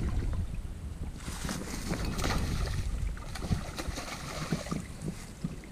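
Shallow muddy water splashing in irregular bursts as a large hooked fish thrashes and is grabbed by hand, easing off near the end.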